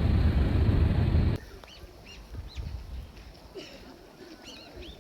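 Background music cuts off abruptly about a second and a half in, leaving small birds chirping: several short rising-and-falling chirps over quiet outdoor ambience.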